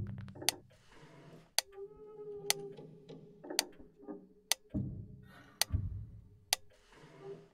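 Clock ticking about once a second, sharp and regular, over a held mid-pitched tone. Low rumbling swells come at the start and again around five seconds in.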